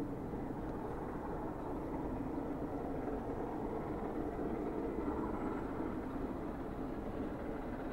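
Steady low rumble of distant vehicle noise, with no distinct beats or strokes.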